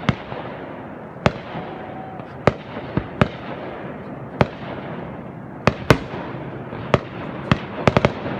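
Fireworks exploding: about a dozen sharp bangs at irregular intervals, with a quick cluster of three near the end, over a steady background hiss.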